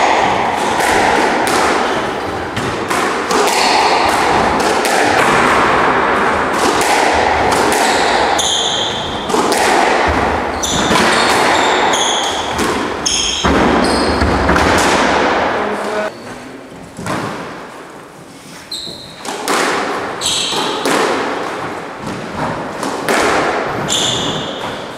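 Squash rally: the ball cracking off the rackets and thudding against the court walls in quick irregular hits, with shoes squeaking on the wooden court floor. The play goes quieter for a few seconds past the middle, then resumes.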